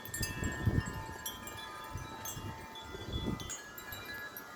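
Wind chimes ringing without pause in strong gusty wind, many overlapping struck tones sustaining and fresh strikes coming every moment. Under them the wind buffets the microphone as a low, gusting rumble.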